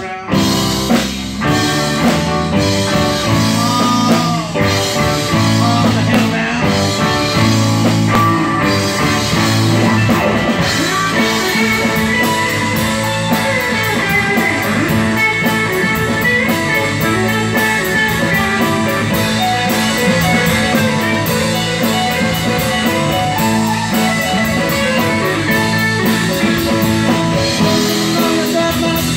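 Live rock band playing a mostly instrumental stretch, with electric guitar to the fore over bass and a drum kit keeping a steady beat.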